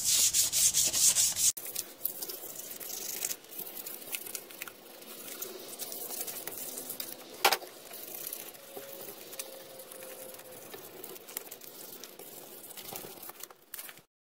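Fine 400-grit sandpaper scuffing the painted gearcase of an Evinrude 40 HP outboard lower unit by hand. Quick back-and-forth strokes for about the first second and a half, then softer, slower rubbing, with one sharp tap about seven and a half seconds in.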